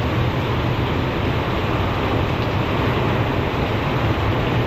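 Heavy rain and high wind of a severe thunderstorm: a loud, steady wash of noise with a deep low rumble.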